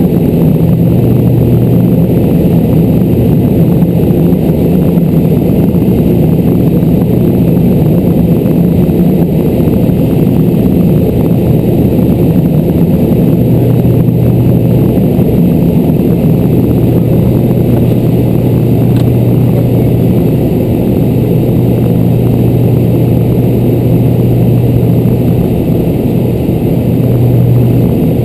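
Twin Pratt & Whitney PT6A turboprop engines and propellers of a Beechcraft King Air, heard inside the cockpit in flight: a loud, steady drone with low humming tones. The lowest tone grows stronger about halfway through.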